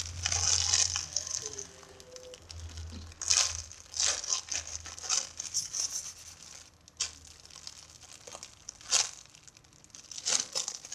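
Homemade squishy being squeezed and handled, crinkling in a series of short, irregular crackly bursts, the longest in the first second or so.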